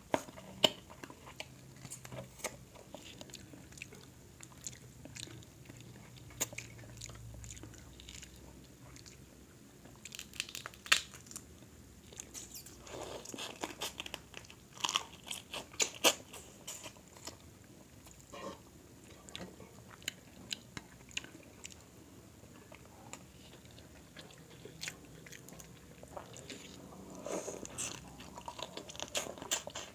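Close-miked eating of a seafood boil: shrimp and crab in thick sauce being bitten and chewed. Scattered short sharp crackles and clicks come from the shells being bitten, with some quick clusters of them.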